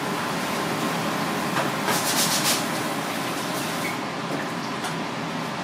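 Steady background hum and hiss of a street-food stall, with a short run of sharp clicks and clatter about two seconds in.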